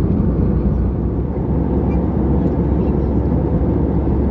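Steady low roar of an Airbus A320-214's engines and airflow, heard inside the passenger cabin in flight.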